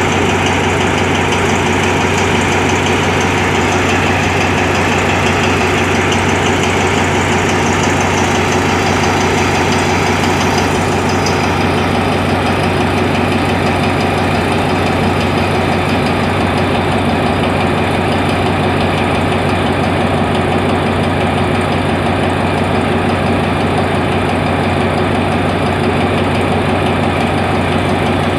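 Diesel locomotive engine idling steadily, with a hiss over it that dies away about eleven seconds in.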